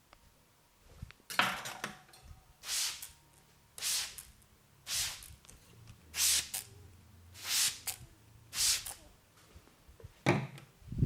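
Hands working on a person's hair and scalp during an Indian head massage. There is a sharp click just over a second in, then a steady rhythm of about seven short crackling rustles, roughly one a second.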